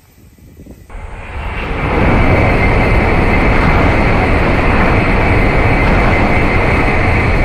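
Shinkansen bullet train passing at speed. A loud, even rushing noise swells in over about a second, holds steady with a thin high whine running through it, and begins to fade near the end.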